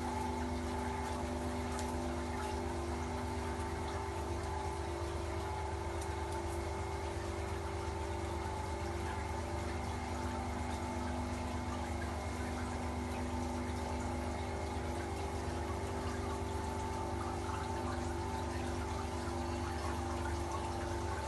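Seawater flake ice machine running, heard from inside its ice drum: a steady machine hum with several held tones, over water running inside the drum.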